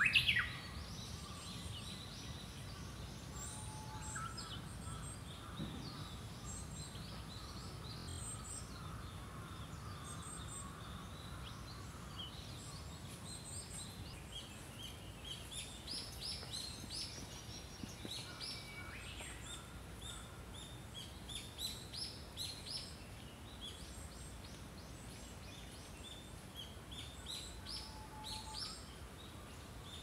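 Small songbirds chirping and singing: many short, high notes scattered throughout, thickest in the second half, over a steady low background hum. A louder sweeping call comes right at the start.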